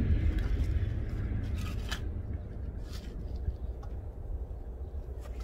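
A low rumble fading over the first couple of seconds, then a few soft clicks and scrapes as small plastic flowerpots are handled and set into the soil.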